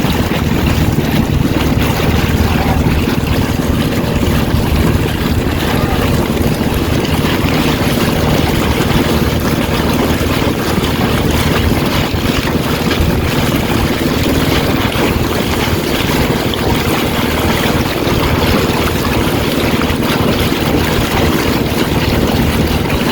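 A steady, loud low drone like a running motor, mixed with wind noise on the microphone.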